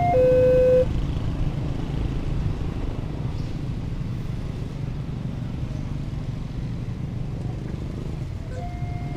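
A level-crossing electronic warning tone, alternating between two notes, stops under a second in as the barriers lift. A steady low rumble of motorcycle engines follows as the waiting riders pull away over the crossing.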